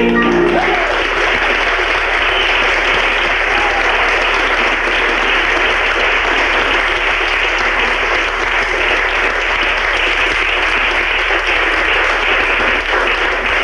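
Audience applauding steadily as a song ends, the accompaniment's last note dying away in the first moment.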